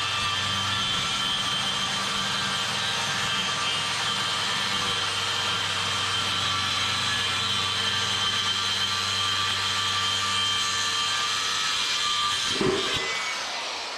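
Electric power saw running steadily as it rips a half-inch wood sheet lengthwise. Near the end there is a knock, and then the motor's pitch falls as the saw spins down.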